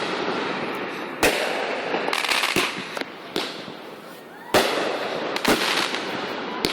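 Aerial fireworks bursting: sharp bangs about a second in and again past four seconds, with crackling between them. A faint rising whistle comes just before the second bang.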